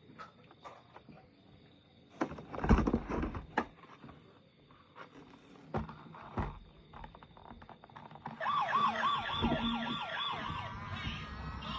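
Clicks and plastic rattling of a toy being handled, then near the end a battery-powered toy vehicle's electronic siren starts up, a fast warble rising and falling about four times a second.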